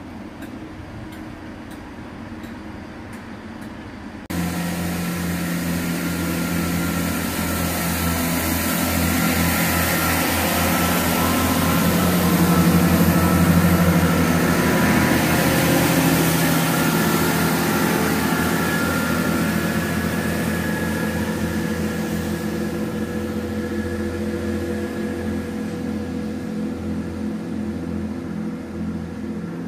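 Great Western Railway Class 165 Turbo diesel multiple unit drawing away from the platform, its underfloor diesel engines running with a low, pulsing drone. The sound jumps suddenly louder about four seconds in, builds for several seconds, then slowly fades as the train recedes.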